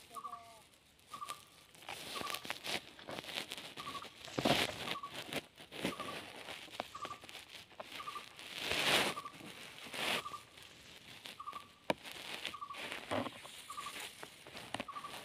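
A bird repeating one short, clear call about once a second, with rustling in dry grass and stalks that swells loudest about four and nine seconds in.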